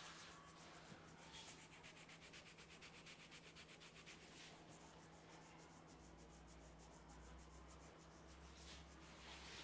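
Faint, fast rubbing of hands on hair and scalp in a head massage: quick, even strokes, about eight or nine a second, for roughly three seconds, then softer continuous rubbing.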